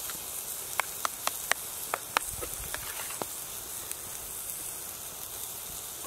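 A metal spoon clicking against a stainless steel pot as thick biscuit batter is scraped out into a baking pan: about eight sharp clicks in the first three and a half seconds. Under it runs a steady sizzling hiss of bacon frying on the wood stove.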